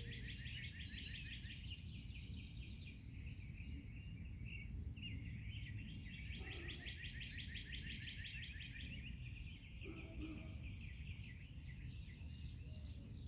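Songbirds singing outdoors, with long rapid trills over a faint steady low background rumble.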